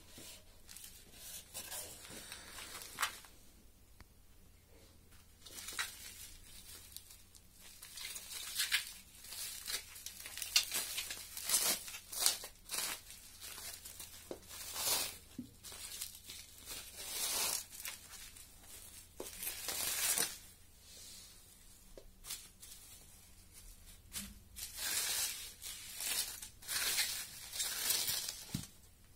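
Plastic bubble wrap crinkling and crackling in irregular bursts as it is pulled open and unrolled by hand, with a couple of quieter pauses.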